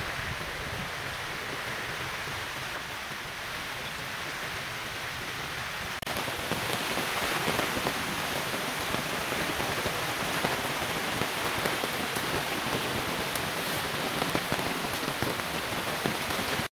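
Rain falling steadily, an even dense hiss of many drops that grows louder and denser about six seconds in.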